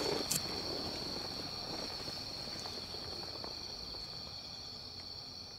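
Night insects trilling in a steady, high-pitched chorus that slowly fades out, with one light click just after the start.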